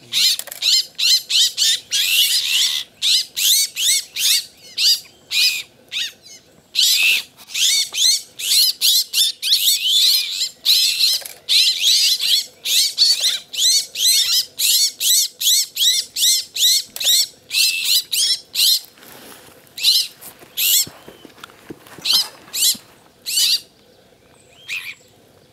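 A flock of Iberian azure-winged magpies calling, squabbling while they feed: a dense run of short calls in quick succession, with a short pause about six seconds in, thinning out to scattered calls over the last several seconds.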